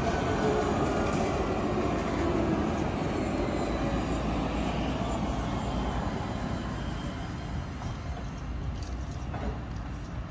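Orange Alstom Citadis tram passing at close range, its wheels rolling on the rails with a steady rumble. It is loudest in the first half and eases off as the tram moves away.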